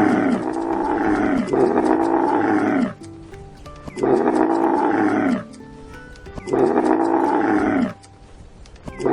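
Camel bellowing: a string of long, loud, low calls of about a second and a half each, each sagging in pitch at the end, with short pauses between them.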